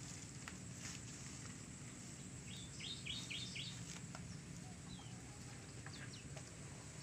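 Faint bird chirping: a quick run of about five short chirps around the middle, then a couple more later, over a steady low background rumble.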